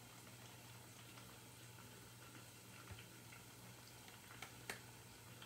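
Near silence: room tone with a steady low hum and a few faint soft ticks, about three seconds in and twice more near the end.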